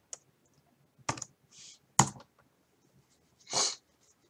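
A few scattered key clicks on a computer keyboard as a password is typed and entered, the sharpest about one and two seconds in. There is a short hiss about one and a half seconds in and a short rushing noise about three and a half seconds in.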